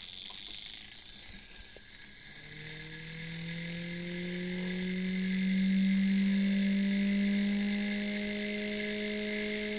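Hand-spun magnet spin top whirring above a Bedini circuit's coil. A hum starts about two and a half seconds in, rises in pitch as the rotor speeds up, then holds steady. A few light handling clicks come before it.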